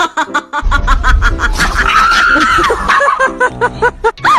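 A person laughing in quick, repeated bursts over background music.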